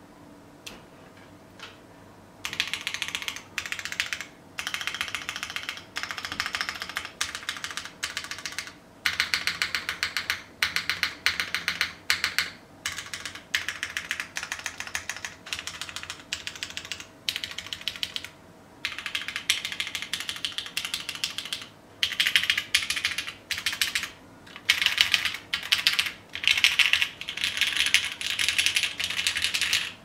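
Typing on a custom mechanical keyboard with lubed, filmed, polished MX Brown tactile switches on a polycarbonate plate, O-ring mounted, with GMK keycaps. After a few single key presses, a dense stream of keystrokes comes in quick runs of a second or two, separated by short pauses.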